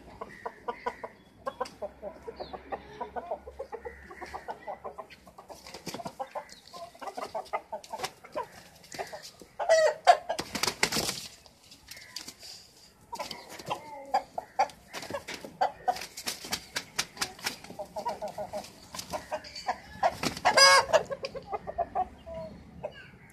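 Domestic chickens clucking continually, with two louder outbursts of calling about ten and twenty seconds in.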